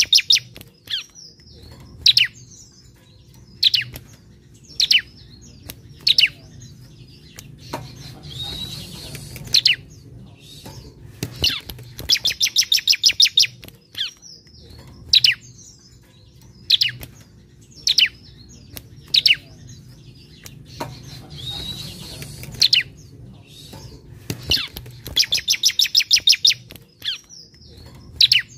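Caged bar-winged prinia (ciblek) singing. Single sharp chip notes come about once a second. Between them, a few times, come longer phrases: rapid high trills and buzzier rattles.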